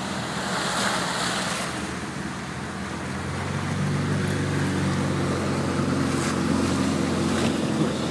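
Jeep engine running as it ploughs through deep floodwater, with water rushing and splashing around the vehicle. The engine note grows stronger and the whole sound gets louder about three and a half seconds in.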